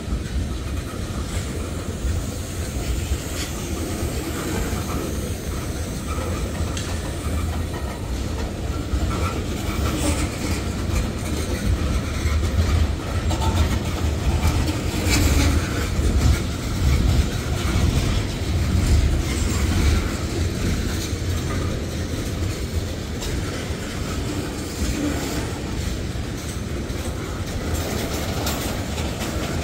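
Freight train tank cars rolling past, a steady low rumble with occasional clicks and clanks from the wheels.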